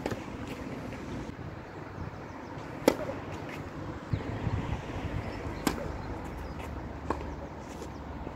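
A few sharp single knocks of a tennis ball, struck or bounced, the loudest about three seconds in and two more later, over a steady low outdoor rumble.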